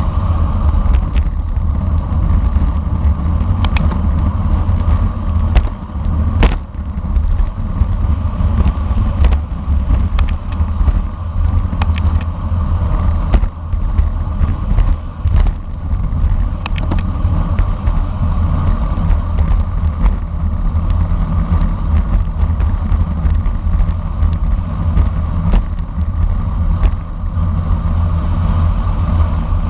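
Steady wind rush and rumble on the microphone of a bicycle-mounted camera while riding, with scattered clicks and rattles from the bike.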